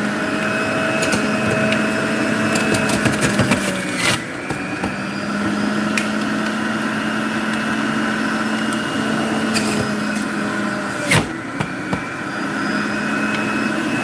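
Breville centrifugal juicer running steadily, its motor and spinning basket giving an even whine and hum. Two sharp knocks sound, about four seconds in and again near eleven seconds.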